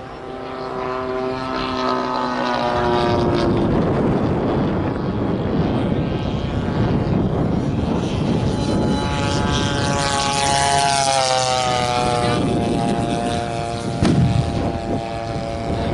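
Propeller engines of radio-controlled model warplanes flying past, their pitch dropping as each one goes by, with the strongest pass about ten seconds in. About fourteen seconds in, a pyrotechnic ground charge goes off with a single loud bang.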